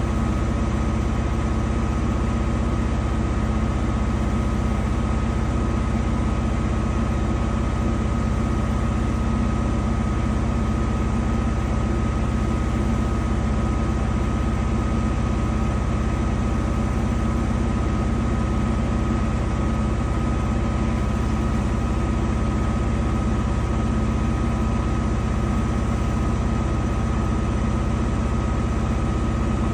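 Danube 20 kg commercial washing machine running at a steady speed: an even motor hum with a constant high whine over the sound of the turning drum, holding unchanged throughout.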